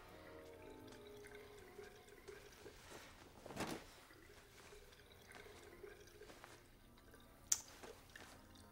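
Quiet washroom with faint dripping water and faint steady tones, a brief rustle about three and a half seconds in and a single sharp click near the end.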